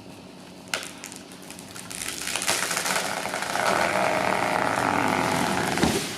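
Tree being felled, recorded from a camera strapped to its trunk: a sharp crack of wood about a second in, then a rising rush of noise over several seconds as it goes over, with a sharp crash near the end.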